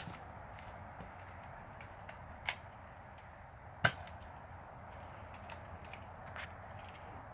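Nerf dart blasters firing: separate sharp snaps, three clear ones a second or more apart and a fainter one later, with scattered faint ticks over a quiet background hiss.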